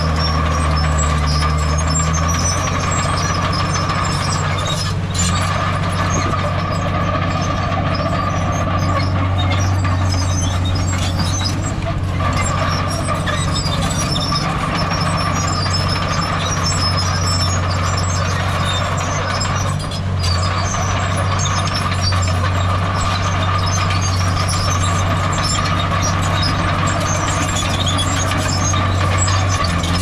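Heavy diesel earthmoving machinery running steadily, a deep engine drone with a steady high whine over it.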